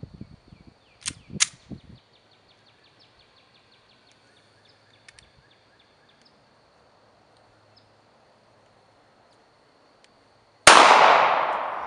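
A Radom P-64 pistol in 9×18mm Makarov fires a single sharp shot near the end, its echo dying away slowly. About a second in come a couple of sharp clicks as the pistol is handled.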